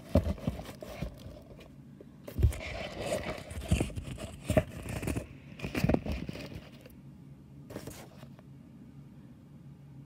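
Handling noise from a phone being held and moved close to its microphone: irregular rubbing, scraping and crinkling with several sharp knocks, going much quieter after about seven seconds apart from one last knock.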